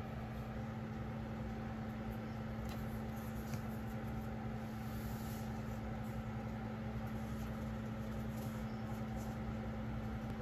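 Steady low machine hum with one constant low tone, with a couple of faint light ticks about three seconds in.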